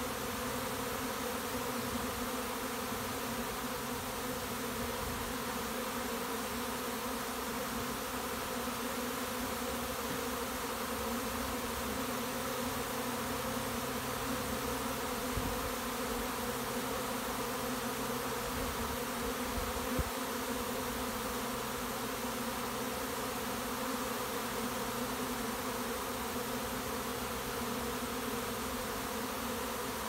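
A swarm of honey bees moving into a bait hive, thousands of bees in the air at once making a steady, dense buzz. Two brief bumps come midway.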